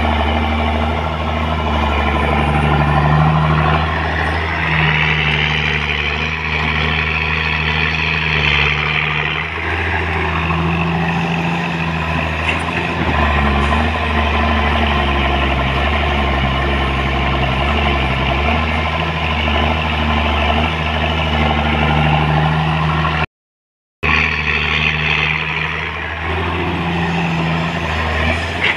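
Komatsu PC200 hydraulic excavator's diesel engine running hard while the machine swings and works its boom, putting out black smoke. A higher-pitched note swells over the engine twice, about five seconds in and again near the end, and the sound cuts out for a moment shortly before the end.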